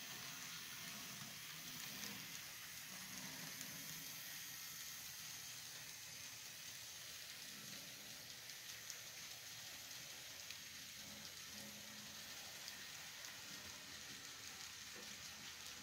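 Model freight train rolling past on a layout: a faint steady hiss with light crackle and scattered ticks, and a low motor hum that comes and goes.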